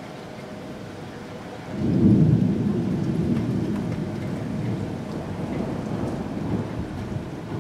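Distant thunder: a low rumble that swells suddenly about two seconds in, then rolls on and slowly fades.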